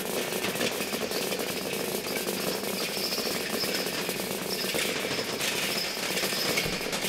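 Free-improvised percussion on drums and Klangstahl steel sound sculptures: a dense, rapid patter of stick strokes, with a high metallic ringing tone sounding above it and growing stronger after about five seconds.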